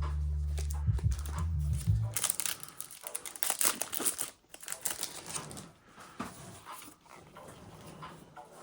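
Foil Pokémon booster pack wrappers crinkling and tearing in quick rustles as packs are opened and the cards handled. A low rumble runs through the first two seconds.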